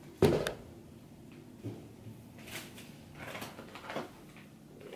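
A thump about a quarter-second in, then a few quieter knocks and rustles: shopping items being set down and picked up by hand.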